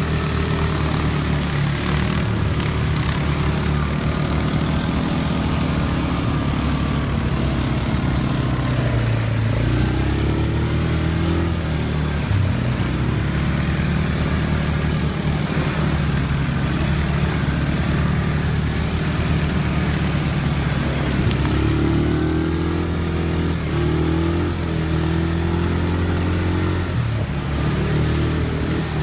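ATV engines running under way, the pitch rising and falling as the throttle changes, over a dense rush of noise from water splashing under the wheels as the quads ford a shallow river.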